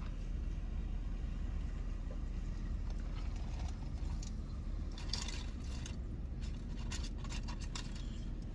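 Steady low rumble inside a pickup truck's cab, with a few short bursts of paper wrapper or bag rustling about five and seven seconds in.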